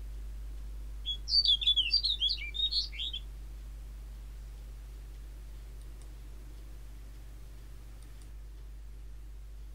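Snow bunting singing: one short, quick warbling phrase of sliding notes about a second in, lasting about two seconds, then only faint steady background.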